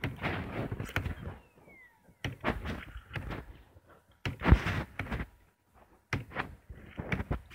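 Irregular knocks, thuds and rubbing from the camera being handled close to its microphone, mixed with sharp clicks of laptop keys as a Wi-Fi password is typed in. The heaviest thud comes about four and a half seconds in.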